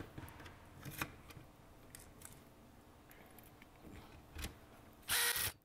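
Quiet handling of 3D-printed plastic blaster parts and aluminium rails on a tabletop, with light clicks and rubbing. Near the end a cordless drill driver runs briefly, about half a second, driving a screw into the printed part.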